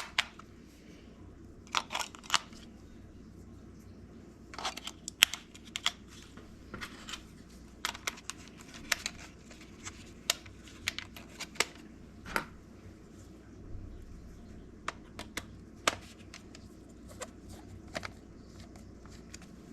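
Small, irregular plastic clicks and clacks of AAA batteries being handled and fitted into a plastic RC transmitter's battery compartment, with the cover being worked.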